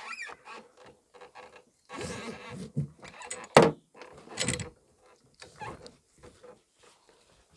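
Nylon webbing strap of a trunk-mounted bike rack being pulled tight by hand: rustling and scraping of the strap with a few sharp clicks and knocks from its hook and buckle, the loudest about three and a half seconds in.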